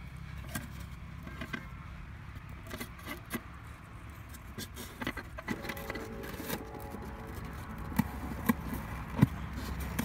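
Light clicks, clinks and scrapes of a plastic trap lid and its thin wire being handled and set, with sharper clicks in the last few seconds, over a steady low hum.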